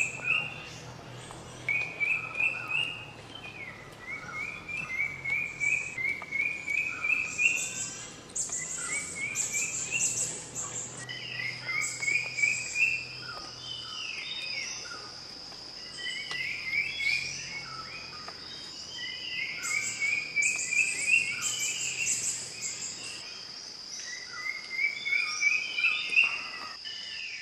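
Birds singing in forest: one repeats a short phrase of quick rising notes every two to three seconds, among other high chirps. From about eleven seconds in, an insect's steady high-pitched buzz joins them. A faint low hum sounds under the first half.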